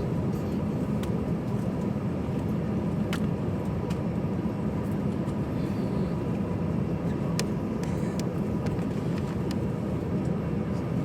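Steady low cabin drone inside an Airbus A320 waiting to taxi, with a faint steady whine above it and a few faint clicks.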